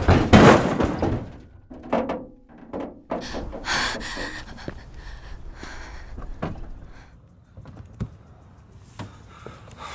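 A heavy thump right at the start, just after tyres skid: a car striking a pedestrian. Quieter knocks follow, and a car door clunks open about eight seconds in.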